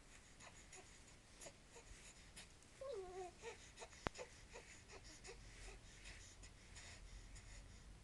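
A baby makes one short, soft vocal sound about three seconds in, over otherwise quiet room tone with faint scattered ticks. A single sharp click comes just after four seconds.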